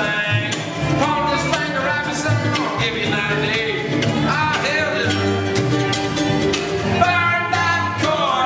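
Live bluegrass band playing: mandolin, acoustic guitar and upright bass, with a man singing lead over a steady bass beat.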